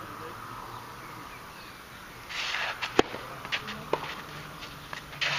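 A tennis racket strikes a ball with one sharp crack about three seconds in, just after a shoe scuffs across the clay court. A few fainter knocks follow as play goes on.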